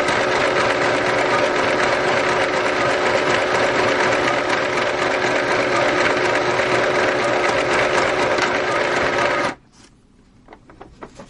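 Singer Pixie craft sewing machine running at its high speed setting, stitching through paper with a steady whir until it stops abruptly about nine and a half seconds in. Faint small clicks follow.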